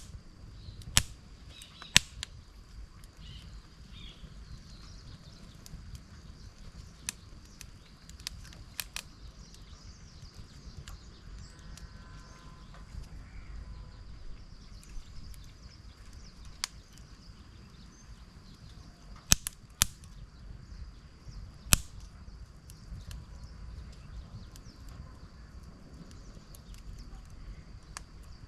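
Scattered sharp knocks or cracks: three near the start, a close pair about two-thirds of the way in and one more shortly after. They sound over a steady thin high whine and a low background rumble.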